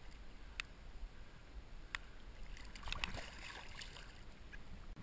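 Faint lapping water around a hand holding a striped bass in the shallows, with a few sharp ticks, then a short burst of splashing about three seconds in as the revived fish kicks its tail and swims off after release.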